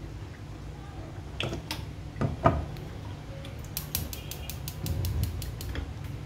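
Cooking oil glugging out of a plastic bottle into a frying pan: a few knocks, then a quick run of sharp clicks as the bottle lets in air, over a steady low hum.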